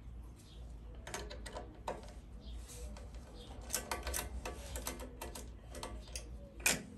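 Irregular light clicks and metallic ticks of small hand work on a tilt steering column: an Allen key turning out small screws and little metal parts being handled and set down, with one sharper click near the end.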